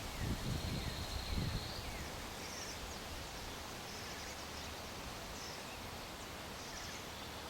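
Outdoor ambience: a steady hiss with faint, short bird chirps scattered through it, and a few low rumbling buffets of wind on the microphone in the first two seconds.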